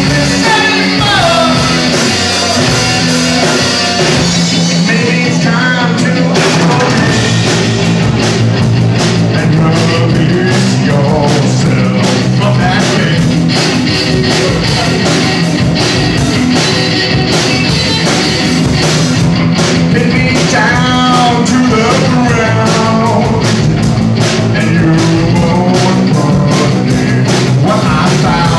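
Live rock band (electric guitar, bass guitar and drum kit) playing loud and steady, with a sung lead vocal in a few stretches, heard at the start, around five seconds in and again around twenty seconds in.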